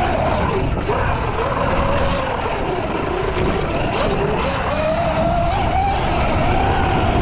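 Sur-Ron electric dirt bike's motor whining, its pitch rising and falling with throttle and speed, over a steady rush of wind and tyre noise.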